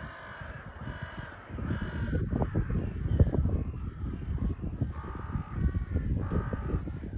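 Crows cawing in short series of harsh calls, three near the start and three more from about five seconds in. Under them, starting about a second and a half in, a louder gusty low rumble of wind on the microphone.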